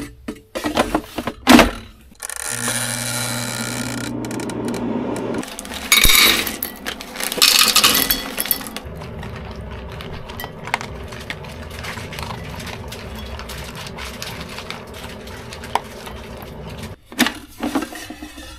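Kitchen handling sounds around an air fryer: the basket knocking into place with a loud clack, then the appliance's steady hum. Later, two Welsh corgis eating from enamel bowls, with many small clinks and crunches, and the fryer basket clattering again near the end.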